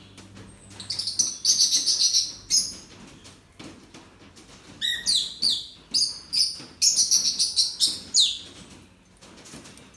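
Small birds chirping in two bursts of quick, high-pitched calls, many of them short downward sweeps, with a lull between the bursts.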